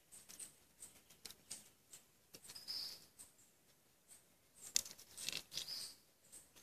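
Faint eating sounds: a man chewing a sandwich of crispy fried pork trotters, with scattered small crackles and clicks and a sharper click just under five seconds in.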